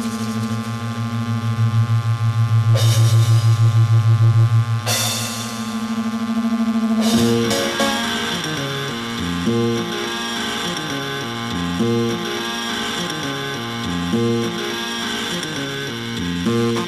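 Instrumental music. A held, pulsing low drone is crossed by two brief swooshing sweeps, and about seven seconds in an even bass line of short stepping notes takes over.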